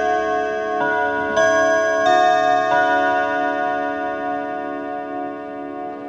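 Kienzle long-case clock chiming on its steel gong rods: the hammers strike four notes about two-thirds of a second apart, then the tones ring on long and slowly fade.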